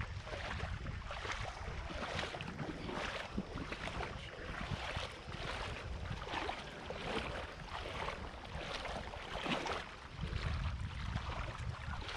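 Strong wind buffeting the microphone, with walking footsteps about twice a second.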